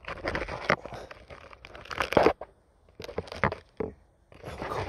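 Irregular handling noise: scrapes, rustles and sharp clicks in quick clusters, with two short pauses, the loudest click a little past halfway.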